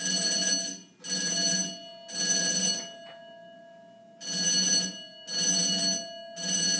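Hotel fire alarm ringing in two groups of three rings, each ring about three-quarters of a second long, with a pause of just over a second between the groups. This is the temporal-three pattern that signals an evacuation.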